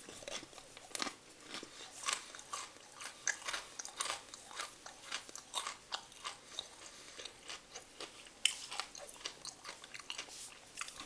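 Close-up chewing of a mouthful of Daim bar: the hard almond-caramel crunch crackles and snaps in many irregular small crunches as it is chewed.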